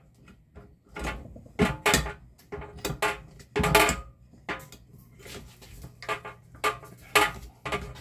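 A bench vise being tightened around the base of a stainless steel industrial blender cup: a series of irregular metallic knocks and clanks, about one every half second, some with a short ring.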